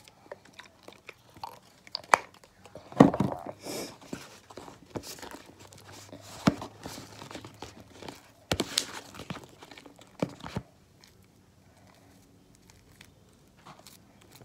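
Hands kneading and stretching sticky fluffy slime: irregular squishing and crackling with a few sharper clicks. It is loudest about three seconds in and again near nine seconds, then settles to faint handling.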